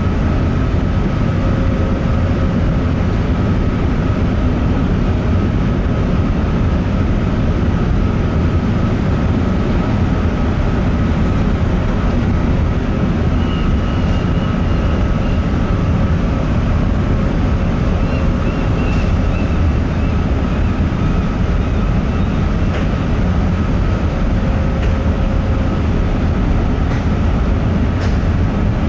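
Steady low rumble of a large car ferry's engines and machinery while it manoeuvres to dock, with a couple of steady humming tones over it.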